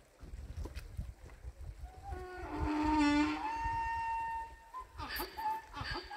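Goats bleating: a long, wavering call begins about two seconds in and holds for a couple of seconds, then shorter bleats follow near the end, over a low rumble.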